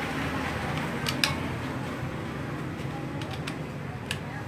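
A handful of short, sharp metal clicks as a T-handle socket wrench works the nuts on a motorcycle cylinder head, the clearest about a second in, over a steady low hum.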